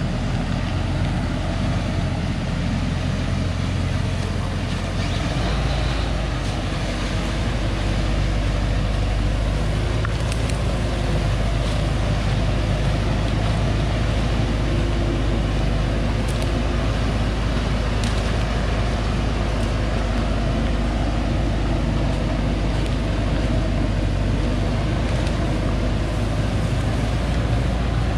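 Thaco Forland FC950 4WD truck's diesel engine running steadily under a heavy load of acacia logs as it crawls up a muddy forest track, its low drone picking up a little about six seconds in.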